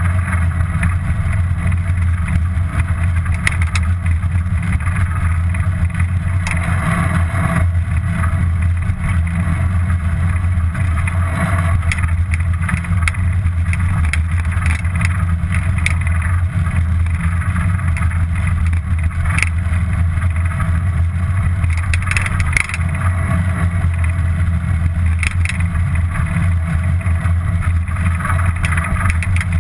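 Steady low rumble of riding a bicycle, wind and road noise picked up by an action camera on the move, with scattered small clicks and rattles.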